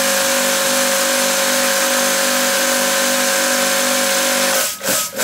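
Electric pressure washer with its housing removed, motor and pump running with a steady hum under the hiss of the water jet; the owner calls the unit faulty and says water spills out of it. Near the end the sound breaks into rapid pulses, about four a second.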